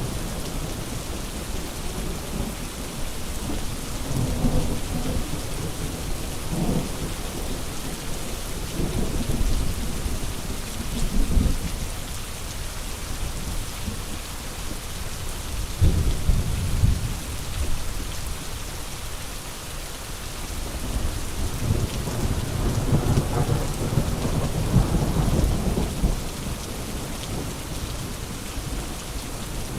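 Steady rain hissing throughout, with low rumbles of thunder that swell and fade several times, the longest in the second half.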